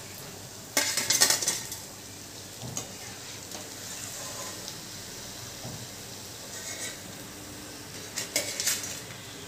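Perforated steel skimmer scraping and clinking against a metal kadhai as fried cauliflower pakoras are lifted out of the oil and drained, over a steady low sizzle of hot frying oil. The loudest clatter comes about a second in, with lighter knocks later and another clatter near the end.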